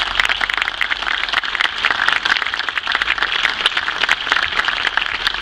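A crowd applauding: many hands clapping steadily and densely, after a commemorative plaque has been handed over.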